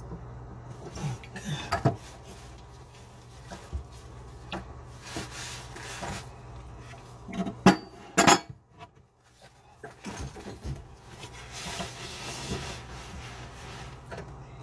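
Metal tools and plumbing fittings clinking, knocking and scraping during under-sink faucet installation work, with a loud pair of knocks about eight seconds in. A steady low hum runs underneath.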